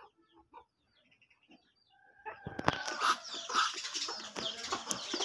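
Chicken feeding at a plastic grain feeder: a quick run of pecking taps with short clucks and chirps, starting about two and a half seconds in after a quiet start.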